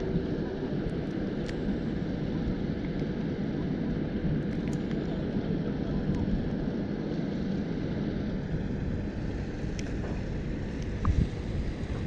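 Steady low rumble of wind on the microphone, with a faint steady hum in the first half. A few light clicks, and a short knock about eleven seconds in.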